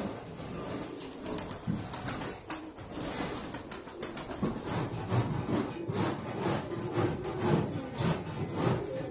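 Andijan pigeons cooing continuously, several birds overlapping, with many short taps and clicks mixed in.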